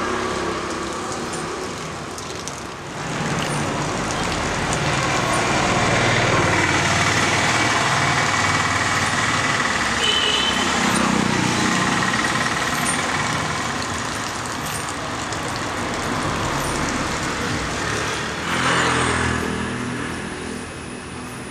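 Road traffic: scooter, motorbike and car engines running and passing along a street, swelling and fading as they go by. One pass is louder a little before the end.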